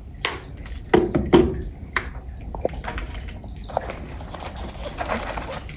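Small accessories and their packaging being handled: a few sharp clicks and knocks in the first two seconds, then lighter ticks and rustling.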